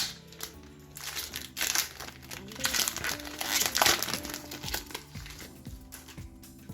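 Foil wrapper of a Pokémon trading card booster pack crinkling in bursts as it is torn open and handled, over soft background music.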